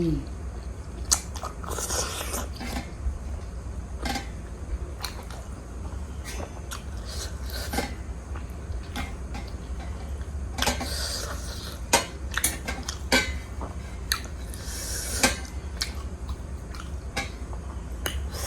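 Close-up mukbang eating of juicy pork momo dipped in tomato achar: scattered clicks of a utensil on a plate and several stretches of wet chewing and slurping, over a steady low hum.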